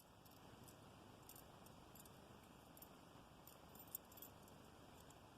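Faint, scattered clinks of a metal wire puzzle's rings and wire bird knocking together as it is handled, over low room hiss.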